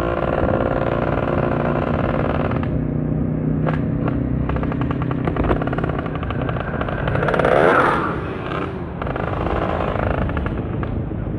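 Motorcycle engine running while riding. A louder sound with a rising then falling pitch swells and fades about seven to eight seconds in.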